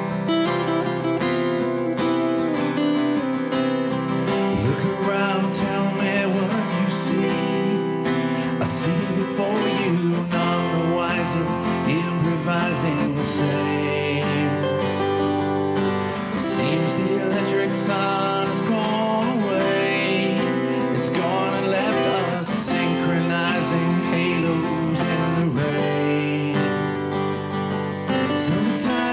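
Two Crafter steel-string acoustic guitars strummed and picked together in a live duo performance, with a man singing lead from a few seconds in.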